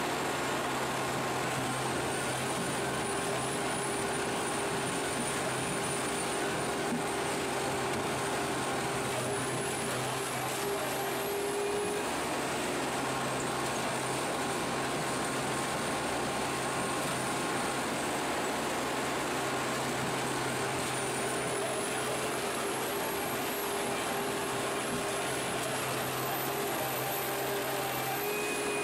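Diesel-driven stump shredder running steadily under load as it works a hopper full of tree stumps, a continuous heavy mechanical noise with a low hum. A thin high whine rises and falls twice, once about a third of the way in and again near the end.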